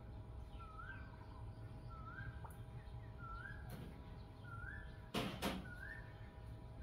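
A bird calls over and over, a short rising whistled note about once a second. Two sharp knocks come close together about five seconds in.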